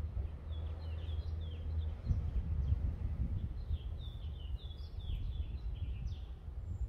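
Small birds chirping, a run of short, quick, falling chirps, over a steady low rumble of outdoor background noise.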